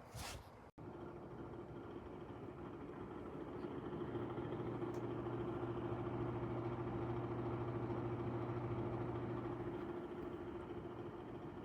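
Bladeless tower fan running: a steady rush of air with a motor hum that grows louder about four seconds in and eases off near the end. A brief burst of noise at the very start cuts off abruptly.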